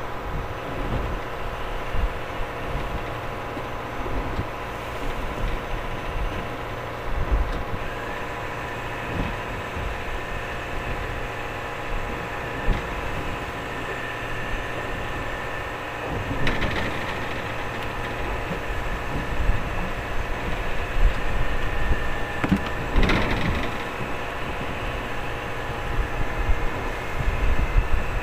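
A fishing boat's engine running steadily, a hum of many fixed tones, with a few short knocks and clatters of gear on deck, the clearest about two-thirds of the way in and again a little later.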